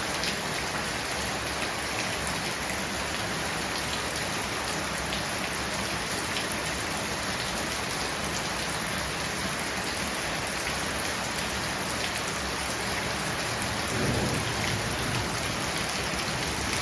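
Heavy monsoon rain falling steadily, a dense hiss with scattered individual drop taps. About three seconds before the end a low rumble swells and fades.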